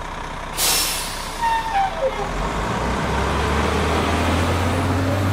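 Garbage truck. A short, sharp hiss comes about half a second in, then a falling whine about a second later. From about halfway the engine settles into a steady low running.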